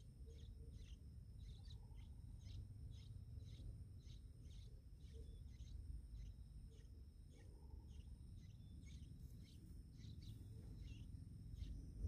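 Faint, short high bird chirps repeated about twice a second, over a steady high-pitched insect whine.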